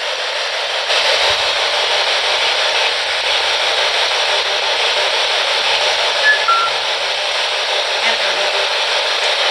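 Spirit box radio scanner sweeping rapidly through stations, giving a steady hiss of radio static. Two brief faint tones break through about six seconds in.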